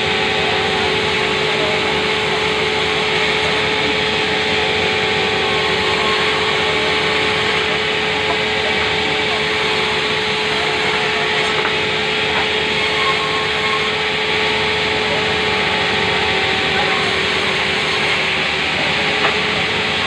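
Electric-motor-driven sawmill saw ripping a thick timber board lengthwise: a steady cutting noise over the machine's continuous running hum.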